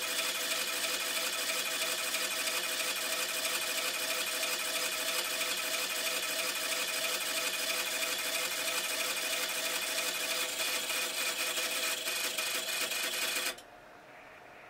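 Automatic antenna tuner of an ICOM IC-7200 ham station working through a tuning cycle on 160 meters: a steady buzzing chatter of rapid clicks with a hum under it. It cuts off about 13 seconds in, when tuning is complete.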